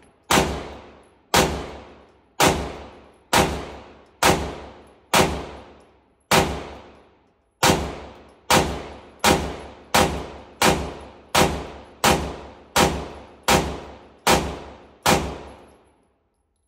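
A 2011-style pistol firing 18 single shots, each with a long echo tail. The shots come about a second apart at first, then a little faster, and stop when the magazine runs empty and the slide locks back.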